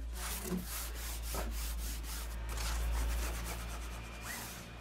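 Bookbinder's bone folder rubbed firmly along book cloth at the edge of a board, a series of short rubbing strokes that press the cloth down and crease it over the edge.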